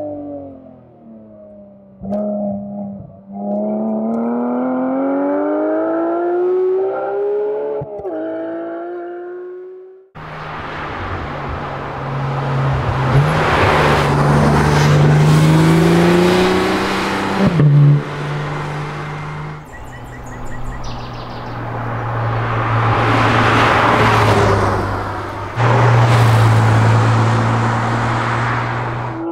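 Porsche 911 GT3's four-litre naturally aspirated flat-six accelerating hard, its pitch climbing for several seconds with a short break about eight seconds in. About ten seconds in the sound switches abruptly to the car running past at speed with a loud rushing noise, swelling twice as it goes by.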